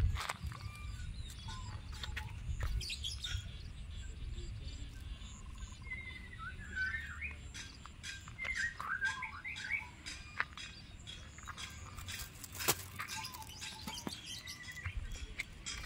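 Small birds chirping in short, quick notes, busiest in the middle, over a steady low rumble, with a sharp click about thirteen seconds in.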